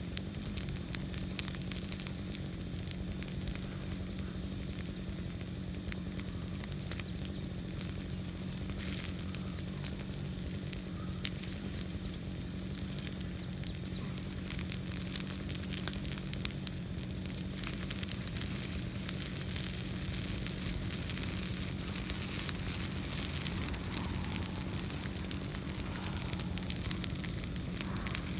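Brush pile of green interior live oak branches burning, crackling and popping steadily, with one sharper pop about eleven seconds in. A steady low hum runs underneath.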